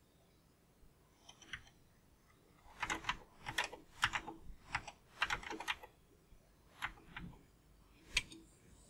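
Computer keyboard being typed on: faint, irregular runs of key clicks, starting about a second in and busiest in the middle.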